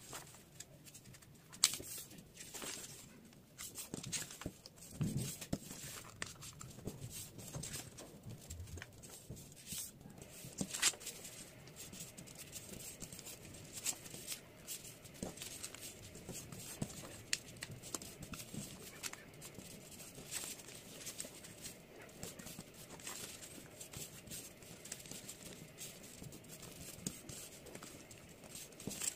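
A sheet of printer paper being folded and creased by hand into a paper airplane: faint rustling and crinkling, with scattered short clicks as the folds are pressed flat.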